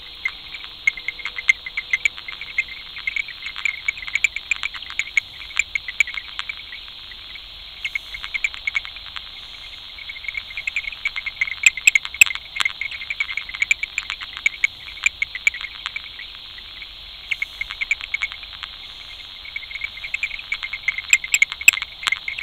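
Insects chirping in a dense chorus: rapid, irregular chirps over a steady high hiss.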